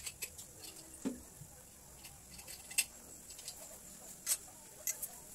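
Faint, scattered sharp clicks and ticks, about five, spaced irregularly over a quiet background.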